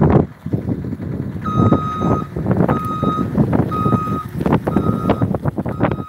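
A skid steer loader's reversing alarm beeping about once a second, starting about a second and a half in, over heavy wind gusting on the microphone, with a loud gust at the very start.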